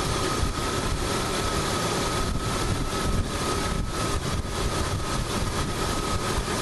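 Car engine idling with the air conditioning on max and the blower on high: a steady even hiss with a thin steady whine.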